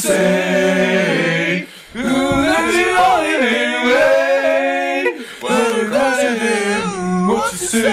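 Singing: a voice holding long, wavering notes in phrases, with short breaks about two seconds and five seconds in.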